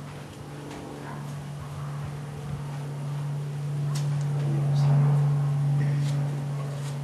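Steady low hum of a motor or engine running nearby, growing louder toward about five seconds in and then easing a little, with a few faint clicks.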